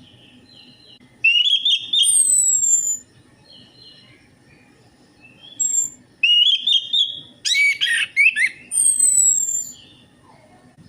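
Orange-headed thrush (anis merah) singing: loud, varied whistled phrases with sliding and falling notes. The song comes in three bursts, about a second in, just past six seconds, and from about seven and a half to nine and a half seconds, with quiet gaps between them.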